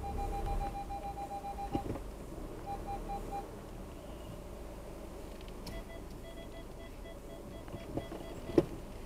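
Car parking-sensor warning beeping in rapid short pulses as the car closes on an obstacle. It stops, then a lower-pitched run of beeps starts a little past halfway. A sharp knock near the end is the loudest sound.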